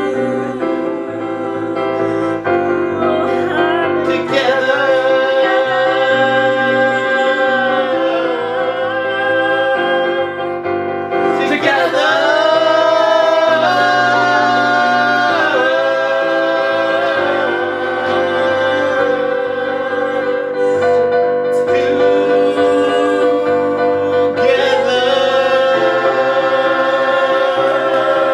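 Several voices singing long held notes in harmony, a closing chorus, over steady piano chords.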